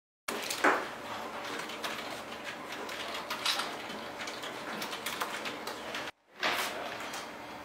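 Office room background with scattered light clicks and a few louder knocks, the loudest about half a second in and another just after a brief cut near six seconds.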